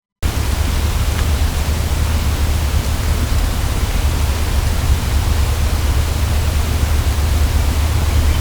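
Steady hiss with a strong low rumble from a heavily amplified outdoor night field recording made by an audio recorder strapped to a tree; it cuts in abruptly a moment in, with no distinct animal calls standing out.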